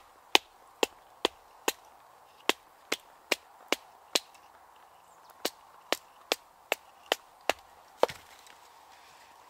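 Batoning: a wooden baton striking the spine of a knife set into the end of a green stick, splitting it lengthways for a spoon blank. Sharp wooden knocks a little over two a second, nine in a row, then after a pause of about a second seven more, stopping about eight seconds in.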